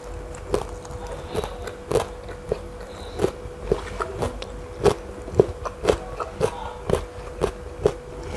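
Close-up chewing of a mouthful of rujak buah (fruit salad with peanut sauce) with the mouth closed, a wet click about twice a second. A faint steady hum runs underneath.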